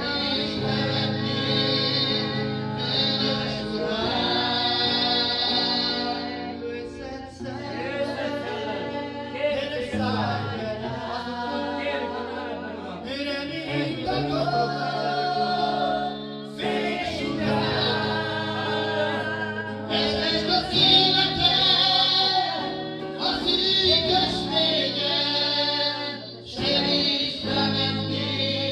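Live gospel praise song: a man sings lead through a microphone and PA over amplified electric guitar and backing chords, with the congregation singing along.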